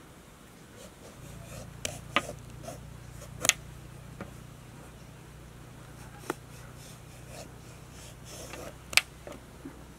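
Peeling bottle gourds with a Y-shaped vegetable peeler: irregular sharp clicks and scrapes as the blade strokes down the rind, the loudest about three and a half seconds in and near the end. A steady low hum comes in about a second in.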